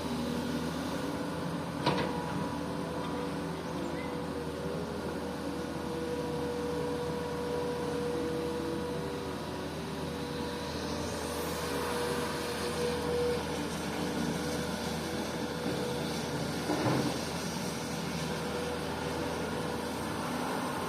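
Komatsu PC200 hydraulic excavator's diesel engine running steadily under working load. A sharp metallic knock comes about two seconds in and another about seventeen seconds in, with a brief rising whine around eleven seconds in.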